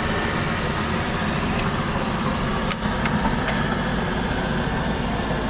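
A heavy vehicle engine running steadily, a dense low rumble with a few faint clicks over it.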